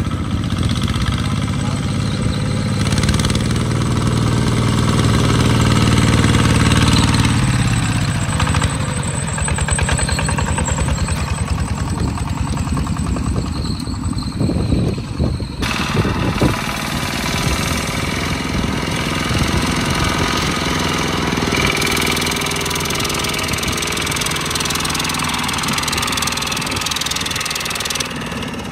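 Single-cylinder diesel engines of two-wheel walking tractors running with a rapid, knocking chug. The engine note is strongest in the first seven seconds, then turns to a rattly knocking, and cuts abruptly about halfway to another engine running steadily.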